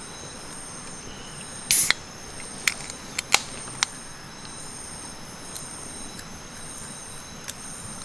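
Steady high-pitched drone of jungle insects over an outdoor hiss, with one short loud rustle or knock just before two seconds in and four sharp clicks between about three and four seconds in.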